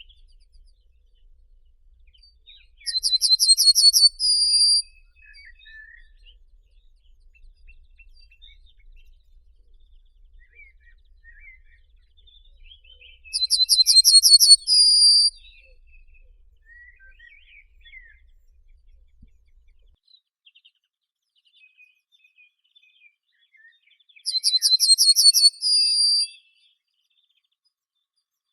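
A songbird singing the same short phrase three times, about ten seconds apart: a fast, high trill of about ten notes ending in a held note. Faint chirps from other birds fill the gaps.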